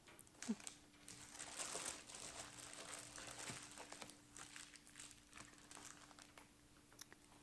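Faint crinkling of a cross stitch kit's plastic packaging being handled, busiest in the first half and tapering off.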